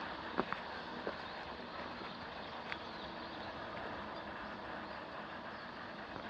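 Steady outdoor background noise, an even hiss, with a few faint clicks in the first second or so.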